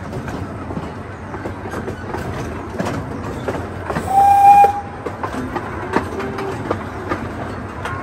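Small park train running over its track with scattered clicks from the wheels and cars. About halfway through, its whistle blows once in a short, steady, single-pitched blast, the loudest sound here.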